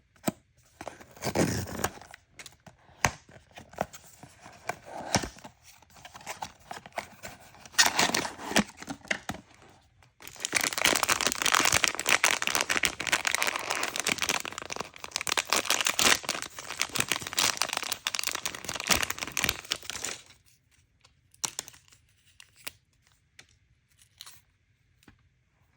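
Surprise-toy packaging wrapping being crinkled and torn open by hand: scattered crackles and rips, then dense continuous crinkling from about ten seconds in for about ten seconds, dying down to a few light clicks near the end.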